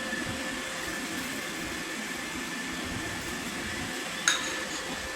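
iRobot Roomba 971 robot vacuum running, a steady motor hum with a high whine, and one sharp knock about four seconds in.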